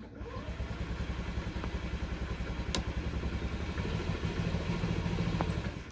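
Electric starter cranking a 2014 Honda Ruckus's 49 cc four-stroke single-cylinder engine without it catching. It spins up at the start, turns over rapidly and evenly, then stops. The scooter won't fire after sitting outside uncovered in the rain.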